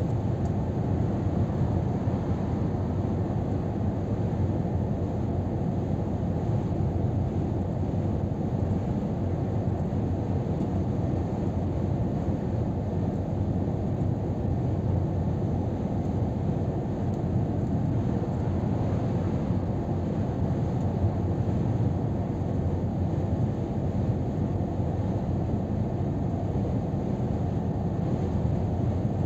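Steady drone of a Scania R500 truck cruising at motorway speed, heard inside the cab: a constant low rumble of engine and road noise.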